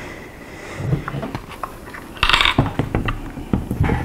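Parts of an HK G36 rifle clicking and clinking as they are handled and fitted during reassembly, with a louder metallic clatter about two seconds in.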